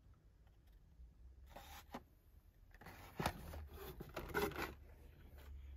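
Blister-packed toy car cards and a cardboard box being handled: scraping and rustling in a few short bursts, with one sharp click about three seconds in.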